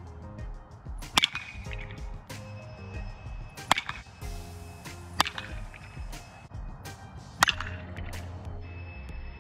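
Baseball bat hitting baseballs in batting practice: four sharp cracks about two seconds apart, over background music.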